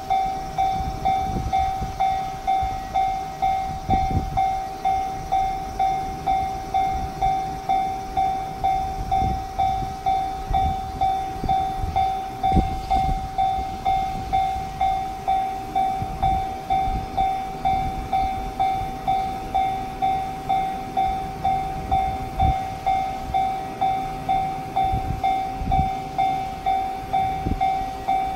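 Japanese level-crossing alarm ringing its electronic 'kan-kan' bell, one even-pitched ding repeated steadily about one and a half times a second. It warns that a train is approaching and the barriers are down.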